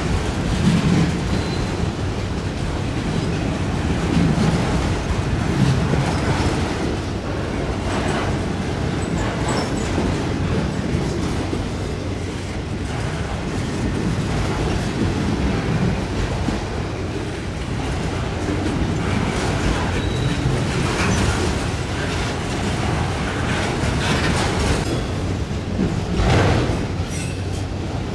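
Freight train of autorack cars rolling past: a steady rumble of steel wheels on rail, with scattered clacks as the wheels cross the rail joints.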